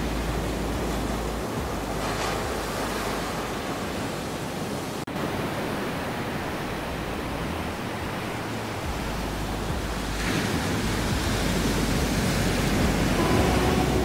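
Ocean surf washing up on a beach: a steady rushing hiss that swells as waves break, about two seconds in and again from about ten seconds. There is a momentary break in the sound about five seconds in.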